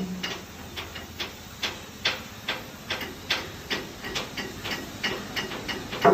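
Rhythmic hammering on steel, about two sharp knocks a second, over a steady hiss. It is typical of rust being chipped off a ship's hull.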